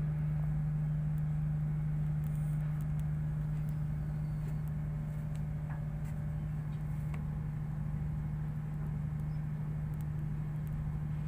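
Ship's machinery droning on deck: a steady low hum over a low rumble.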